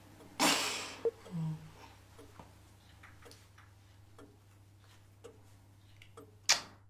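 Smartphone camera shutter and handling sounds as selfies are taken: mostly quiet, with a soft whoosh about half a second in, scattered faint ticks, and a sharper short click-like burst near the end.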